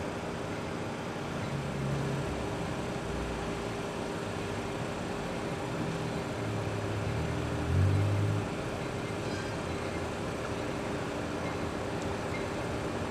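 ALCo S1 switcher locomotive's diesel engine running steadily, with a deeper rumble swelling briefly about two seconds in and again past the middle, loudest just before the two-thirds mark.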